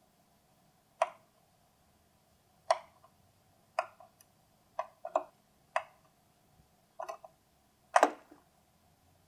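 Small hard parts being handled: about eight sharp clicks and knocks at irregular intervals, the loudest near the end.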